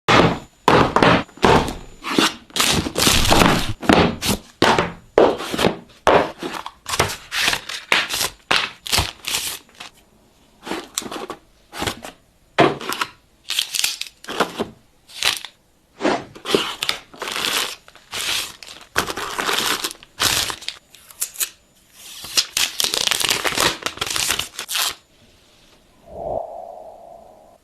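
Phone packaging being unboxed: plastic wrap and film torn and crinkled, with sharp cracks and taps of cardboard and plastic, in many short, irregular bursts. A brief hum comes near the end.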